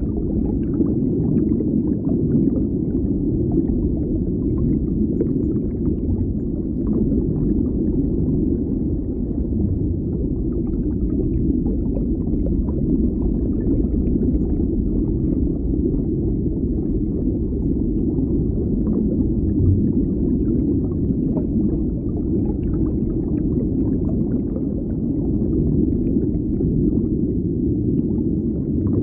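Deep underwater ambience: a steady low rumble with faint, scattered crackles above it.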